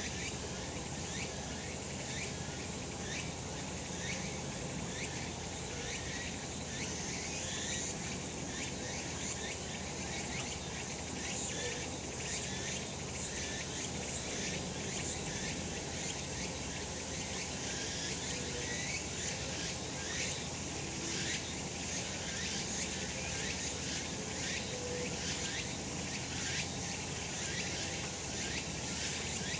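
Many cicadas singing together: a steady, dense, high-pitched buzz made of fast rasping pulses that never lets up.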